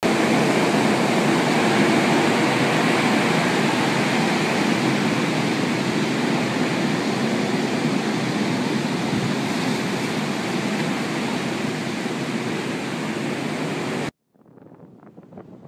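Hurricane storm noise: a loud, steady rush of wind and surf that starts abruptly and cuts off suddenly about fourteen seconds in, followed by a much fainter, uneven rustle.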